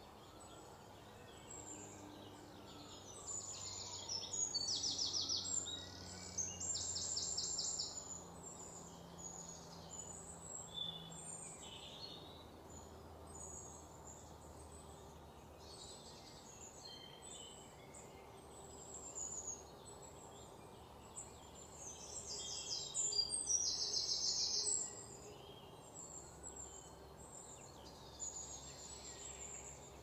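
Birds chirping and trilling over a steady outdoor background: short high notes scattered throughout, with louder fast trills about four to eight seconds in and again just before the middle of the second half.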